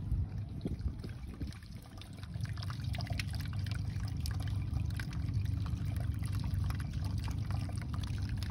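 Small solar-powered tiered garden fountain: water trickling and pouring from one bowl into the next with a steady splashing patter, louder from about two seconds in.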